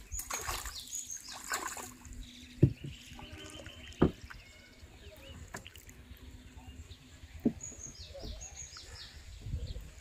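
A hooked fish splashing at the water's surface as it is hauled in on a bamboo rod, then three sharp knocks against the wooden boat as the fish is landed and moves about on the planks.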